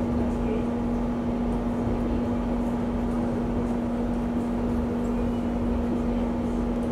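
Steady running noise inside a Singapore MRT train carriage in motion, with a constant low hum over the rumble of the wheels on the rails.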